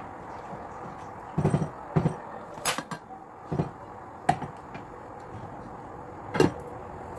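A wooden spoon knocking against a stainless steel cooking pot and a glass pot lid clinking as it is lifted: about six separate short knocks and clinks, the sharpest near the end.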